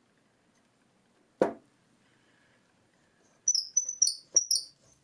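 One knock, then near the end a run of short, high-pitched squeaks: a steel ball-screw shaft end being forced into the bore of a tight-fitting metal hub, metal squeaking on metal because the fit is too tight.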